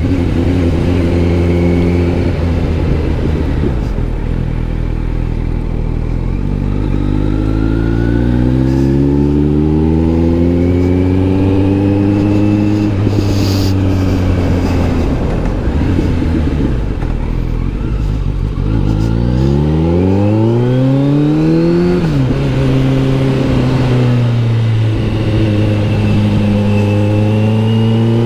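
Kawasaki Z900 SE's inline-four engine running through an SC Project S1 silencer under way: the revs climb slowly for several seconds and fall back, then climb quickly and drop off sharply about twenty seconds in, before holding steady.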